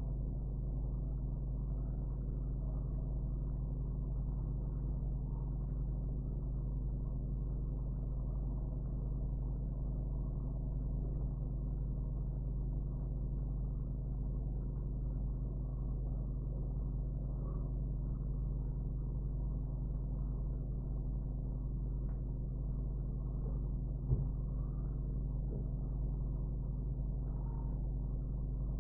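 Steady low background hum, a few even tones held unchanged throughout, with a single faint click about 24 seconds in.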